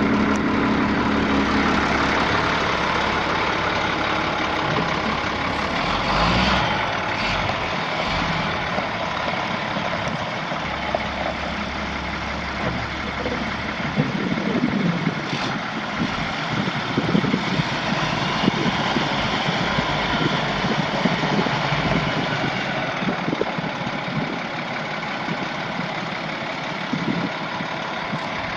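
International DT466 7.6-litre inline-six diesel engine of a 2002 International 4700 dump truck running at a steady idle.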